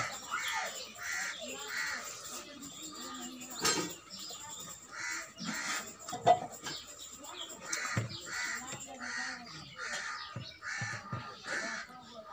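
Crows cawing in repeated runs of harsh calls, about two a second, alongside the soft sounds of rice and curry being mixed by hand on a steel plate and chewed.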